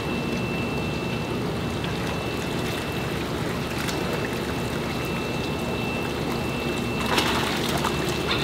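Steady rush of water around shiner holding tanks, with a spell of splashing and dripping about seven seconds in as a dip net full of shiners is lifted out of the tank.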